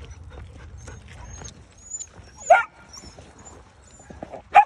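Belgian Malinois puppy giving two short, high yelps, one about halfway through and one at the end.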